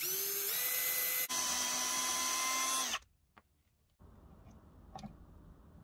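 Cordless drill spinning up and running steadily while boring into a small wooden block, with a brief dip a little over a second in; it stops about three seconds in. After a moment of quiet, a faint low hiss with a light click.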